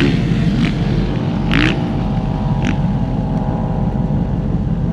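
Dune buggy's swapped-in 5.3-litre LS V8 with headers running at a steady speed as the buggy drives across sand on its first run. A few short hissing noises come through over the engine.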